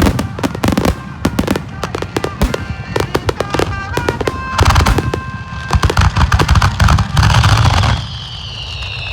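Fireworks finale heard from close beneath the launch site: dense, rapid crackling of bursting shells with heavy booms, and a high whistle falling in pitch near the end.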